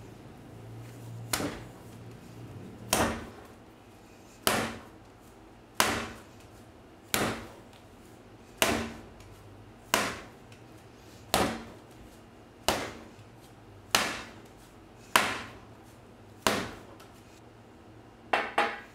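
Bread dough slapped down on a hard countertop while being kneaded, a sharp slap about every second and a half, twelve times, then two quicker knocks near the end.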